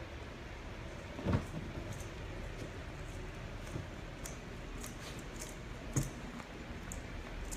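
Soft rustling and a few short thumps from a puppy pawing and nosing at a ball toy on a padded dog bed, over steady room hiss. The louder thump comes about a second and a half in, another about six seconds in.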